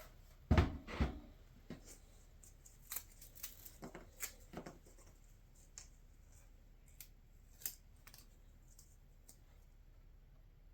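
Small clicks and taps of 3D-printed plastic parts and M5 nuts and bolts being handled and fitted, with two heavier knocks about half a second to a second in.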